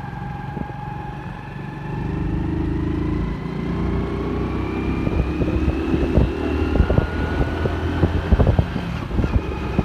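Motorcycle engine running as the bike is ridden along, its note slowly rising as it picks up speed, with wind buffeting the microphone.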